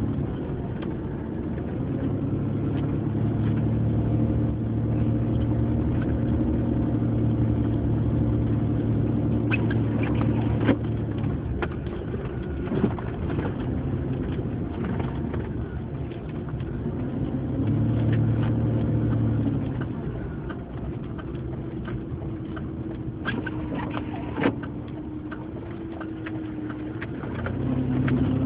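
Car driving, its engine humming steadily and swelling and easing with the throttle, with a few sharp clicks about ten seconds in and again past twenty seconds.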